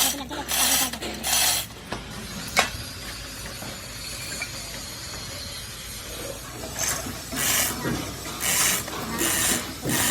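Rasping hand strokes of an abrasive working over a hard surface, a few quick strokes, then a pause broken by one sharp click, then the strokes start again near the end.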